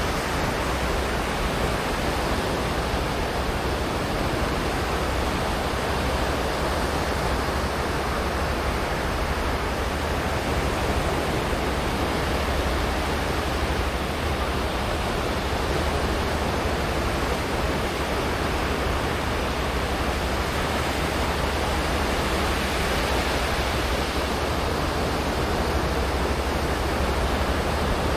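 Sea surf on a sandy beach: waves breaking and washing in a steady, even rush with a deep rumble underneath.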